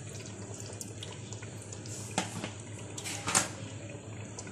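Pot of chicken curry with spinach purée simmering on the stove: a steady low hiss with faint bubbling ticks, and two soft pops about two and three seconds in.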